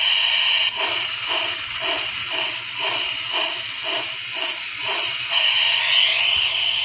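Trackmaster remote-control Hiro toy trains' speakers playing a steam-locomotive chuffing effect over a steady hiss, about two to three chuffs a second. The chuffing stops about five seconds in, leaving a hiss with a brief rising tone.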